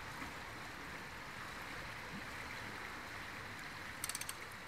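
River water flowing steadily, an even rushing hiss. Near the end come a few quick clicks.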